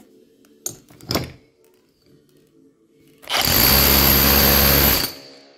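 Bosch GBH 180-LI cordless rotary hammer running for about two seconds with its bit pressed against a steel spanner on the workbench, testing the hammer action after a new piston compression ring. It has a steady high motor whine over the rapid blows. A couple of short knocks come about a second in as the tool is handled.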